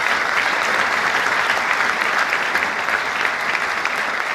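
Audience applauding: many hands clapping in a dense, steady patter that tapers off slightly near the end.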